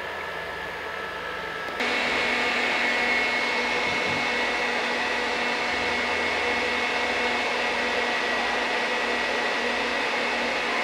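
Electric stand mixer with a wire balloon whisk running steadily, beating egg whites into meringue as sugar is added. The motor whine steps up louder and higher about two seconds in, then holds steady.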